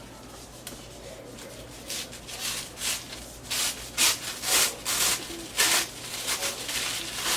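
Packaging being unwrapped by hand, rustling and crinkling in a string of irregular strokes that grow busier and louder from about two seconds in.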